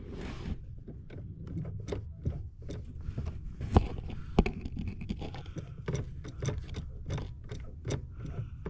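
Scattered light clicks and knocks of hands and parts being handled around a truck's steering column, with two sharper knocks a little past the middle, over a low steady hum.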